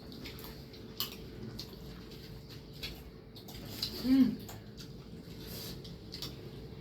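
Light, scattered clinks of a spoon against bowls and plates as pani puri is filled with spiced water and eaten, with a brief murmured vocal sound about four seconds in.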